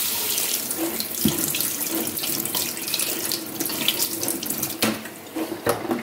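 Tap water running in a steady stream onto a hot stovetop moka pot held under the faucet over a stainless steel sink, cooling the pot. A few sharp knocks come near the end as the flow eases off.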